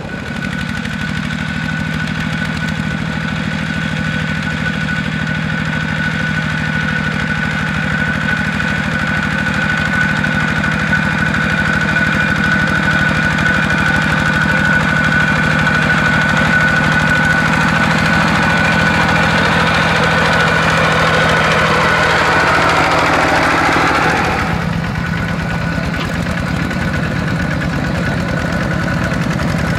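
Single-cylinder diesel engine of a Kubota walking tractor chugging steadily while it plows wet soil, with a steady high-pitched whine. The whine grows louder and then stops abruptly about 24 seconds in, and the sound drops a little.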